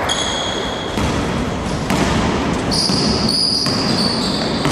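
A basketball being dribbled on a wooden gym floor, with players' footsteps on the court, echoing in a large hall.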